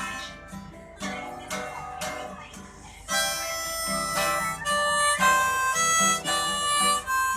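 Music, an instrumental break: strummed acoustic guitar, joined about three seconds in by a louder harmonica melody of held notes.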